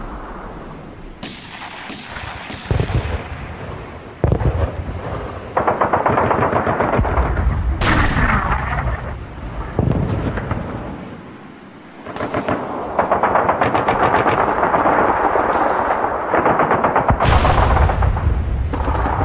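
World War II battle sound effect: long stretches of rapid machine-gun fire mixed with single gunshots, broken by heavy booms every few seconds.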